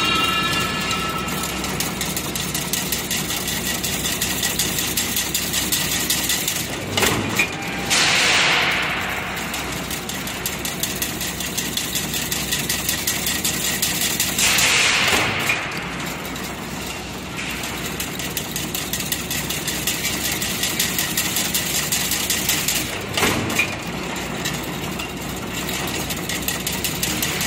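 Automatic chain link fence (diamond mesh) weaving machine running in normal automatic operation, a steady rapid mechanical clatter. Three louder hissing swooshes come at roughly eight-second intervals.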